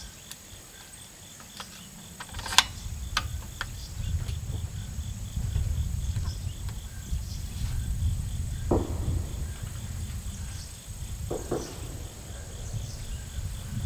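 Crickets chirping steadily in a high, regular pulsing trill. A few sharp clicks from the muzzleloader's action being handled come about two and a half to three and a half seconds in, followed by a low rumble.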